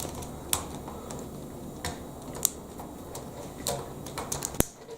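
Plastic Lego Technic pieces clicking and tapping as they are handled and fitted together: sharp clicks at irregular intervals, with a quick run of them near the end.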